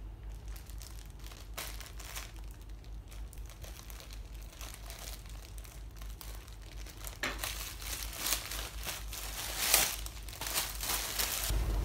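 Plastic courier mailer bag crinkling as it is cut open with scissors and a plastic-wrapped item is pulled out. The rustling is faint and sparse at first, then gets louder and busier about seven seconds in.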